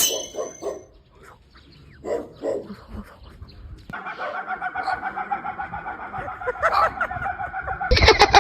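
A person imitating farm-animal calls with the voice: a few short pitched calls, then a long wavering call held for about four seconds, then a loud, rapidly pulsing call near the end.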